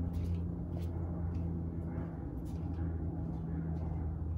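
A steady low hum with several light clicks and taps from hand work on a car battery terminal.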